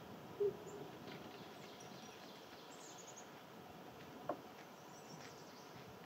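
Outdoor ambience with faint, distant bird chirps and short high trills, broken by two brief louder blips, one about half a second in and one just after four seconds.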